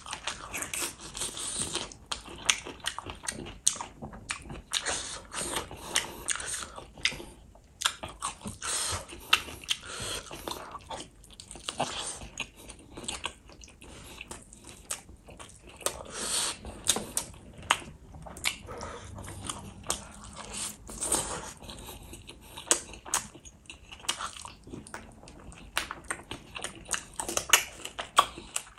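A person biting and chewing spicy chicken lollipops in gravy, tearing the meat off the bone by mouth: many irregular sharp clicks of bites among the chewing.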